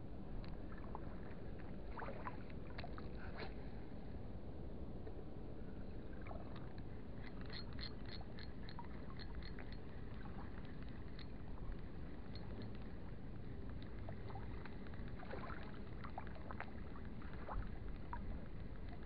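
Steady low rush of harbour water and wind at the waterline, with scattered light clicks throughout and a run of quick ticks about eight seconds in.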